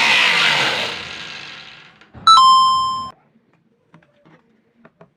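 Angle grinder spinning down after a cut, its loud whine falling in pitch and fading out over about two seconds. Then a single short bell-like ding, followed by a few faint clicks.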